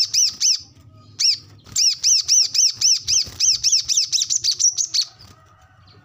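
Brown-throated sunbird singing a chattering song of sharp, arched chirps, about four a second. A short run is followed by a longer one of about three seconds that quickens into a fast trill at its end before the bird pauses.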